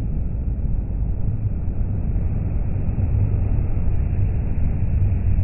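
Passing motorway traffic led by heavy articulated lorries, a Mercedes-Benz Actros and a DAF XF: a steady low rumble of engines and tyres. It grows a little louder in the second half as the nearer lorry goes by.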